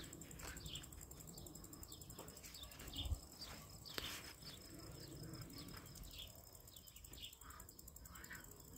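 Quiet outdoor ambience: birds chirping now and then over a faint, steady, high insect whine, with one soft low thump about three seconds in.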